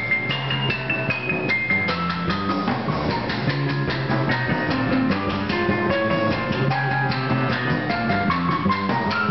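Live trio of keyboard, drum kit and upright double bass playing an instrumental number: a keyboard melody stepping downward near the start over walking bass notes and busy cymbal and drum playing.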